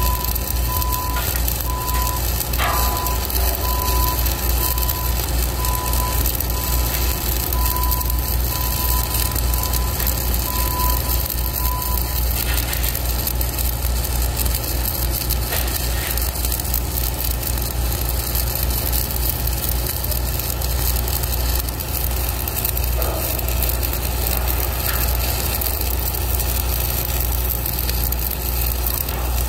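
Stick-welding arc from a 1/8-inch Lincoln Excalibur 7018 electrode at 126 amps, a steady crackling sizzle as the bead is run on the angle clip. A low engine drone runs steadily underneath, and a regular beeping alarm sounds until about twelve seconds in.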